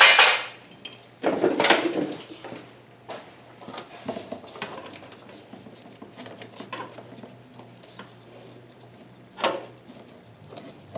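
Metal clanks and clinks of tools and engine parts being handled. A loud clank comes right at the start, a rattle about a second and a half in, scattered small clicks after it, and a sharp clink near the end.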